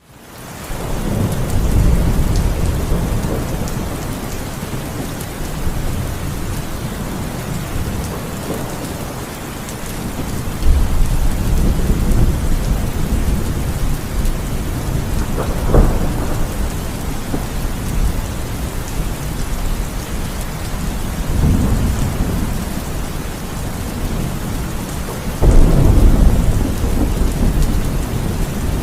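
Heavy rain falling steadily, with thunder rumbling several times and one sharper crack about halfway through. The sound fades in at the very start.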